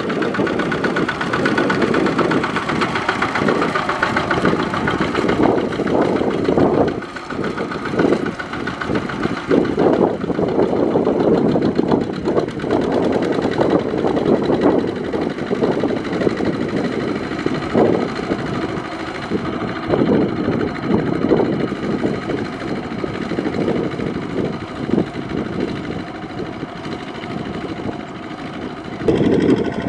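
Single-cylinder diesel engine of a two-wheel walking tractor running under load while plowing wet paddy mud, a steady rapid knocking chug. Its level drops a little about seven seconds in and rises again near the end.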